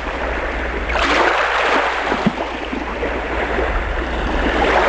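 Rushing, surf-like noise that swells about a second in, over a steady low hum.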